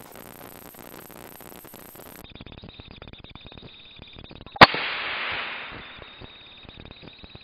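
A single gunshot from a scoped gun aimed at a roosting bird: one sharp, loud crack about four and a half seconds in, followed by a hiss that fades over about a second and a half.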